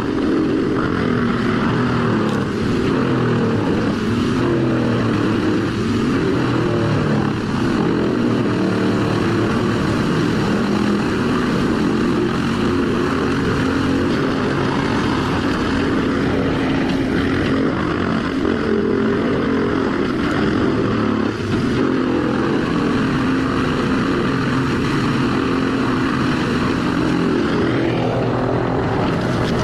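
Bandit 2590 track whole-tree chipper's Caterpillar C18 diesel engine running steadily under power, a constant heavy drone that wavers slightly in pitch.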